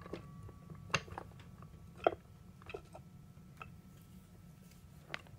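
Scattered light metallic clicks and clinks, a handful spread about a second apart, as the stacked clutch packs are pushed and turned inside a 42RE automatic transmission case, their discs working past the friction plates toward seating.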